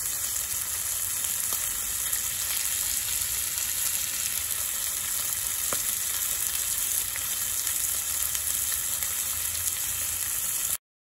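Marinated spare ribs sizzling in oil on a small rimmed iron griddle over a portable gas stove: a steady frying hiss with small crackles, which cuts off suddenly near the end.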